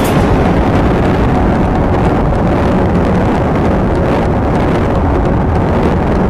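Yamaha R15 V3's 155 cc single-cylinder engine pulling hard under full acceleration at around 110–120 km/h, changing from fourth into fifth gear. Heavy wind rush on the microphone covers much of the engine note.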